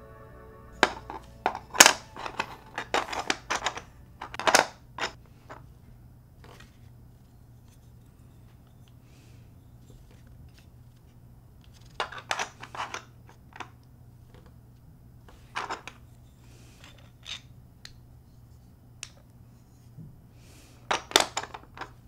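3D-printed plastic puzzle pieces clicking and clacking against each other and the plastic tray as they are slid and pressed into place. The clicks come in clusters, several in the first few seconds and another run about halfway through. A few more come near the end as the last pieces are seated.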